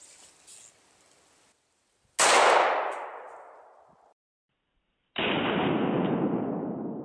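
A single rifle shot from a scoped AR-15 firing .223 75-grain BTHP: a sharp crack about two seconds in that rolls away and cuts off suddenly. About three seconds later a second sudden, duller report, heard from the steel-plate target, dies away slowly.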